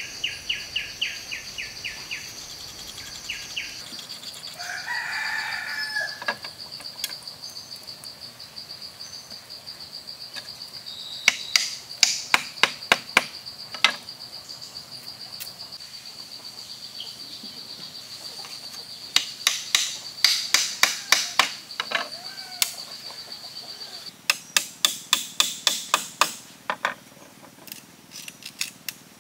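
Bursts of quick sharp hammer taps on bamboo, several strikes a second for a few seconds at a time, as thin bamboo pins are driven into a bamboo frame. A steady high insect drone sounds behind until near the end, and a rooster crows once about five seconds in.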